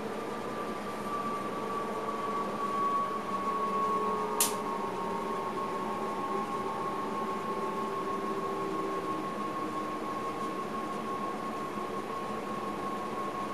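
Electric train heard from inside the driver's cab: a steady hum and whine from the running gear and electrics, its highest tone sinking slightly over the first few seconds and then holding. A single sharp click a little over four seconds in.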